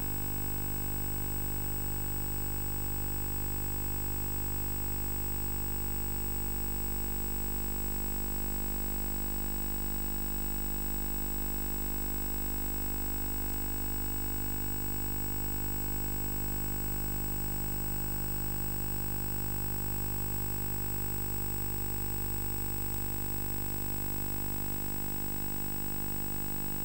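A steady, unchanging drone of several held tones.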